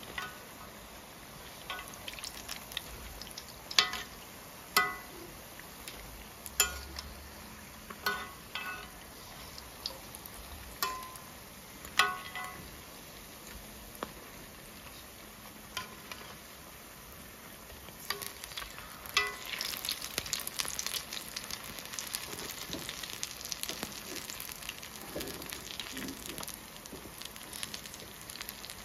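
Bara frying in deep oil, the oil sizzling and crackling. For the first two-thirds, a metal utensil clinks sharply against the pot about once a second, each clink with a short ring. From about two-thirds through, the sizzling turns dense and louder.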